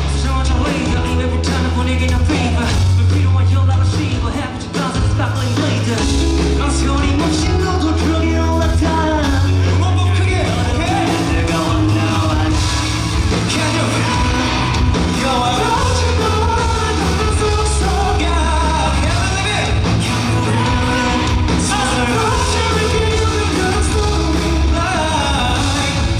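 Live rock band playing with a singer, through concert-hall loudspeakers, recorded from the audience, with loud bass and occasional yells.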